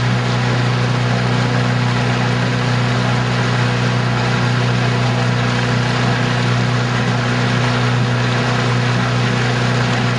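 An engine running steadily at one constant speed, a low even drone with a noisy hiss above it.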